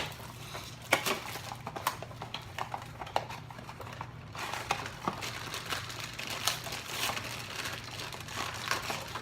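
Funko Mystery Minis blind boxes being opened: cardboard boxes torn and foil bags crinkled, with irregular rustling and clicks of handled packaging.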